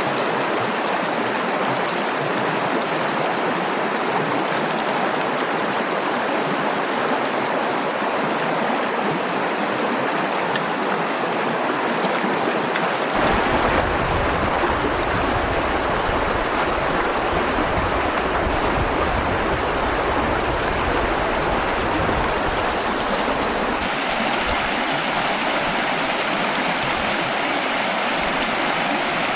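Mountain stream rushing steadily over rocks. About halfway through, a low rumble joins the sound of the water.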